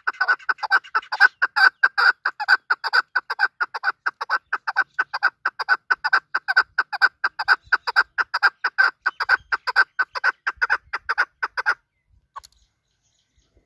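Chukar partridge (chakor) calling: a fast, steady run of sharp chuck notes, about five a second, that stops about twelve seconds in.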